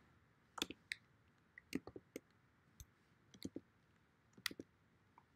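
Faint, irregular keystrokes on a computer keyboard as a word is typed: a dozen or so short, scattered clicks.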